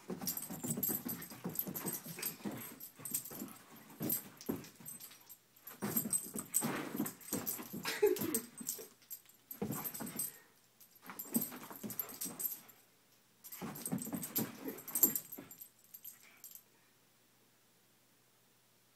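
Greyhound making excited vocal noises in irregular bursts of a few seconds while chasing a laser pointer dot, falling quiet about three-quarters of the way through.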